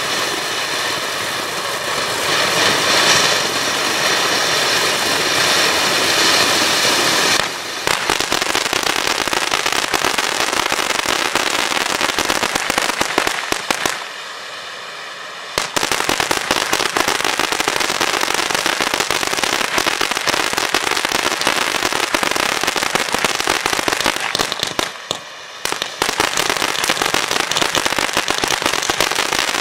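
Helios Merlin 25 mm fountain battery burning: a steady hiss of spraying sparks, turning about seven seconds in to a dense crackling that runs on with two short, quieter breaks of hiss, one about halfway and one a few seconds before the end.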